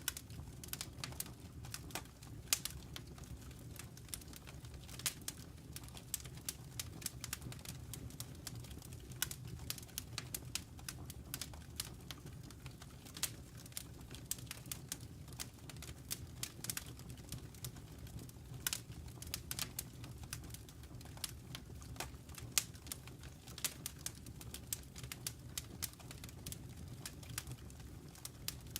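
Wood fire burning in a fireplace: frequent irregular crackles and sharp pops of the burning logs over a low steady rumble.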